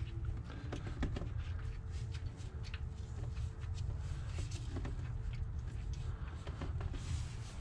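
Scattered light clicks and scrapes of gloved hands fitting bolts with flat washers and lock washers into the clutch housing, over a low steady rumble.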